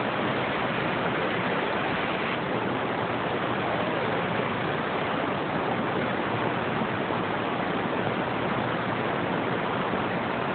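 Steady hiss of static from a radio receiver with the squelch open, band noise with no signal coming through, between transmissions.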